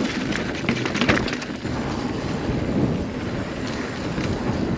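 Kona Honzo steel hardtail mountain bike rolling over rough dirt trail: tyre and frame noise, with a cluster of sharp clicks and knocks in the first second and a half settling into steady rolling noise.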